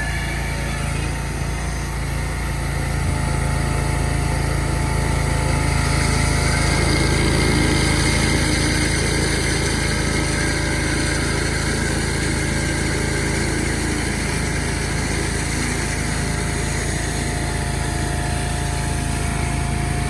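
Small petrol engine of a remote-control laser screed running steadily as it levels wet concrete, a little louder for a few seconds in the middle.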